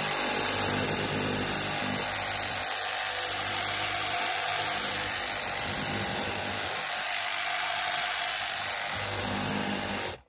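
Electric drill motor running steadily, its low hum dipping and swelling a few times as if under changing load, then cutting off suddenly near the end.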